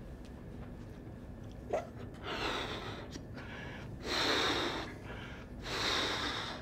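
A man blowing up a rubber balloon by mouth: three long puffs of breath into it, with short pauses between, after a brief sharp sound just before the first puff.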